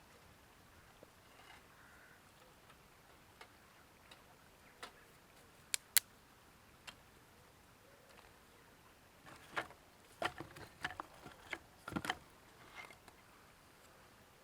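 Faint, irregular clicks and ticks, scattered at first, then a quick cluster of sharper taps about ten to twelve seconds in.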